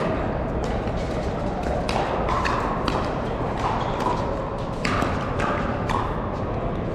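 Pickleball paddles striking plastic pickleballs in doubles rallies: a string of sharp pops, some close and ringing, others fainter from neighbouring courts, over the steady background noise of a large hall.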